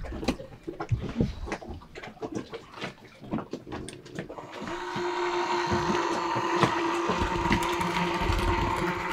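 Clicks and knocks of things being handled, then an electric mixer starts about four and a half seconds in and runs steadily, mixing cupcake batter.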